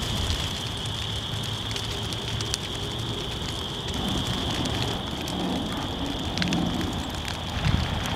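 Dry prairie grass burning in a prescribed burn: a steady rushing noise of the flames, peppered with quick crackles and pops.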